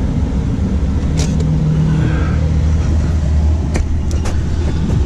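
Car driving, heard from inside the cabin: a steady low engine and road rumble, with a few sharp clicks a little before the end.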